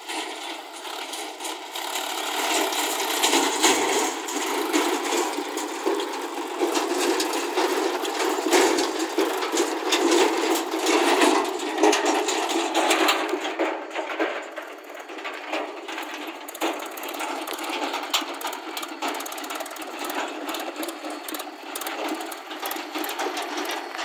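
Tractor diesel engine running as it drives over rough ground, with its empty steel trolley rattling and clanking. The rattle is loudest in the middle as it passes close.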